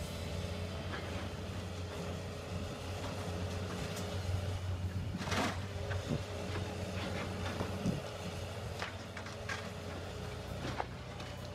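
John Deere hydraulic excavator's diesel engine running steadily while the machine tears at a brick building, with scattered cracks and clatters of breaking and falling debris; the loudest crack comes about five and a half seconds in.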